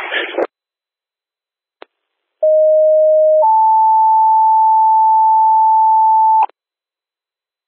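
Two-tone sequential radio page over a scanner: a lower tone for about a second, then a higher tone held for about three seconds, the tone-out that alerts fire and EMS units just before they are dispatched. It comes after a short burst of radio static and a click.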